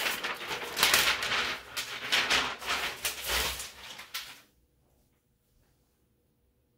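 Large paper sheets rustling and crinkling as they are peeled off a freshly heat-pressed sublimation transfer, stopping abruptly about four and a half seconds in.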